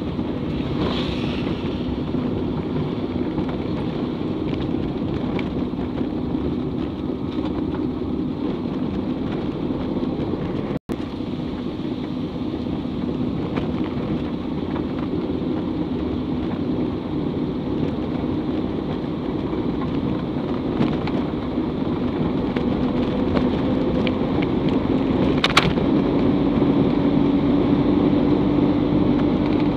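Inside a moving vehicle's cabin: the engine running and the tyres rumbling steadily over a rough, unpaved dirt road, with a few sharp knocks from the bumpy surface. The sound cuts out for an instant about eleven seconds in.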